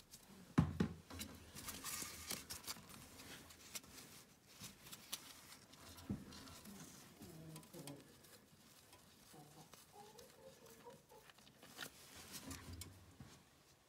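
Gloved hands working at a tractor gearbox level plug with a tool and a cloth rag: scattered light clicks and knocks of metal with rag rustling, the loudest knock about half a second in.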